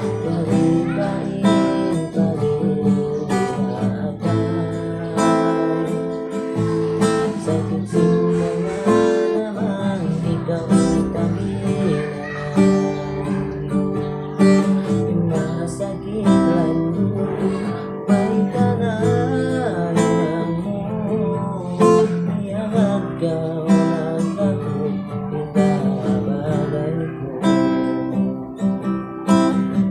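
Acoustic guitar strummed in steady chords, with a man's voice singing along in places.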